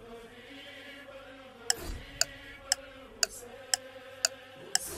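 Countdown-timer sound effect: a clock ticks sharply about twice a second, starting a little under two seconds in, just after a soft whoosh. Under it runs a steady, wordless chanted vocal drone.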